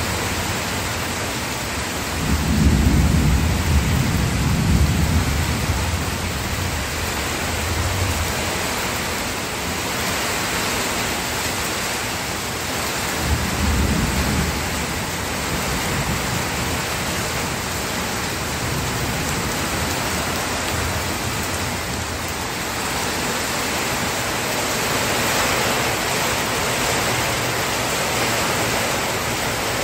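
Steady rain falling, with two low rumbles of thunder: a longer one a couple of seconds in and a shorter one about halfway through.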